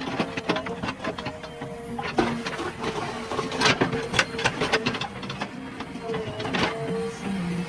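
JCB earth-moving machine at work: the engine and hydraulics run steadily under a stream of irregular metallic clanks and rattles.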